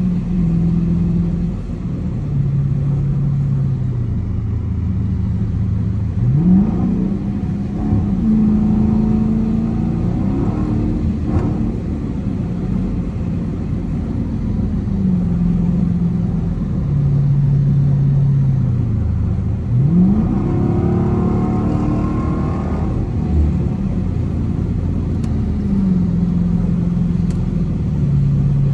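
Dodge Challenger R/T's 5.7 HEMI V8 heard from inside the cabin at highway speed, revving up sharply twice (about six and twenty seconds in) under hard acceleration, its note then dropping in steps as it shifts up, over steady tyre and road noise on a wet road.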